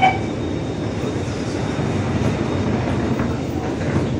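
Steady running noise inside an Alstom Movia R151 metro car as its doors slide shut and the train starts to move off, with the last beep of the door-closing chime right at the start.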